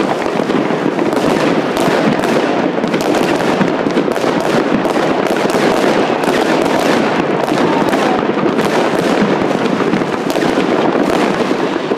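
Many fireworks and firecrackers going off at once in a dense, continuous crackle of overlapping bangs, with no break.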